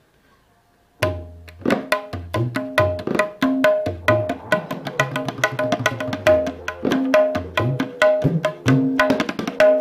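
Kendang tabla set played by hand in a fast dangdut rhythm, starting about a second in. Crisp ringing strokes on the small drum's skin head, which carries an iron-powder spot, mix with deep bass strokes on the larger drum whose pitch bends.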